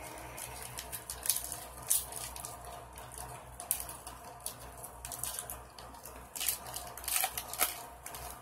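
Foil wrapper of a trading card pack crinkling and crackling in the hands as it is handled and opened, with irregular sharp crackles throughout.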